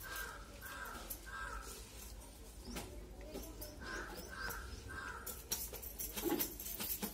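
A crow cawing, three caws in quick succession at the start and three more about four seconds in. Faint clicks and wet sounds come from a hand eating rice from steel bowls.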